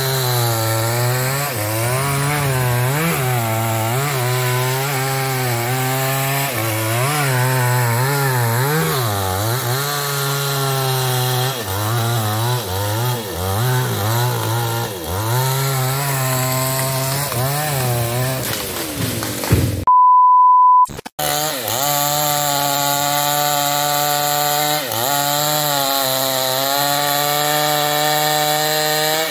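Two-stroke New West 588 chainsaw cutting into a tree trunk at full throttle, its pitch sagging and recovering over and over as the chain bogs in the wood. About twenty seconds in, the saw sound cuts out for a steady one-second beep, then the saw runs again at a steadier pitch.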